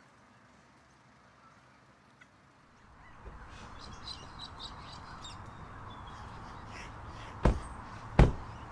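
Near silence, then outdoor ambience with birds calling from about three seconds in, and near the end two car doors slamming shut about a second apart on a white SUV.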